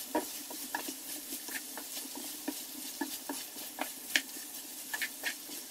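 Beef liver, onions and peppers sizzling in a frying pan over high heat while a wooden spoon stirs them, with irregular light knocks and scrapes of the spoon against the pan.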